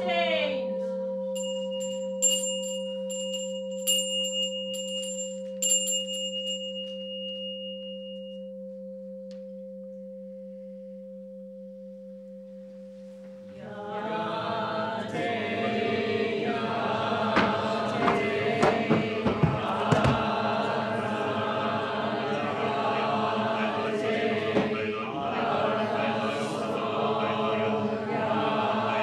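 A large bowl bell struck once, its low hum fading slowly over about thirteen seconds, with faint high ringing and light clicks in the first few seconds. About fourteen seconds in, a congregation starts chanting a sutra in unison, many voices together.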